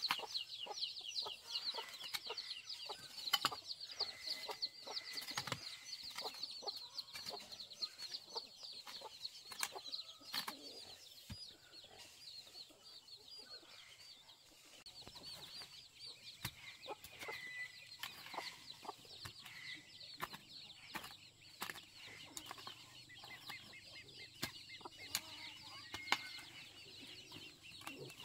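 Hoe blade chopping into soil in repeated separate strikes, with chickens clucking close by. A high, fast chirring runs in the background for about the first ten seconds, then fades.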